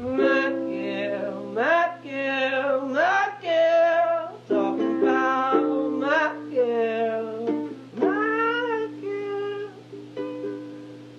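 Music: an acoustic song with a gliding lead melody, likely sung, over plucked-string accompaniment.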